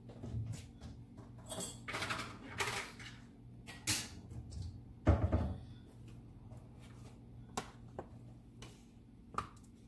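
Kitchen handling sounds from things being moved about on the counter: stretches of rustling, one louder thump about five seconds in, then a few short sharp clicks and knocks.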